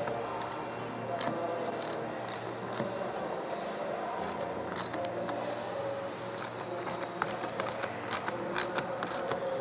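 Ratchet with a 10 mm socket clicking in short, irregular runs as the factory bolt holding a rear bumper apron is tightened.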